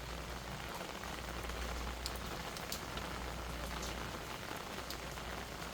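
Steady light rain falling, with scattered single drops ticking on nearby surfaces.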